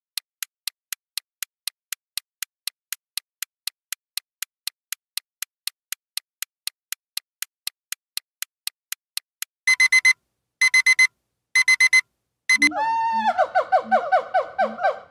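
Quiz countdown timer sound effects: a clock ticking about three times a second, then an alarm clock beeping in four short bursts to signal that time is up. Then comes a swooping, fast-warbling sound effect for the answer reveal.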